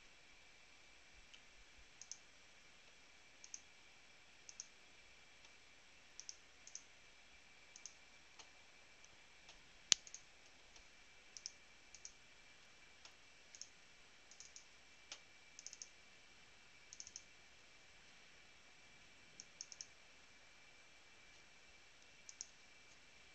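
Faint, irregular clicks of a computer mouse and keyboard, with one louder click about ten seconds in, over a faint steady high-pitched whine.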